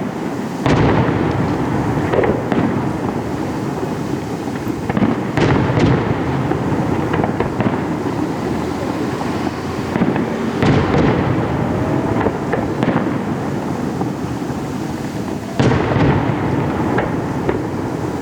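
Aerial fireworks display: shells bursting with booms over continuous dense crackling, with louder bursts about 1, 5, 11 and 16 seconds in.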